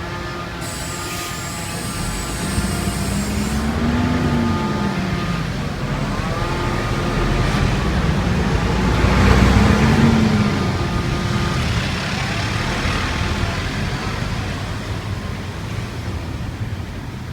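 Road traffic: motor vehicles passing, with engine pitch rising and falling as they go by, loudest about nine to ten seconds in.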